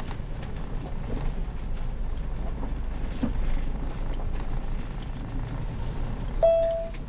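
Heavy motorhome driving, heard from inside the cab: a steady low rumble of engine and road with scattered light clicks and rattles. About six seconds in, a short steady beep-like tone sounds for about half a second.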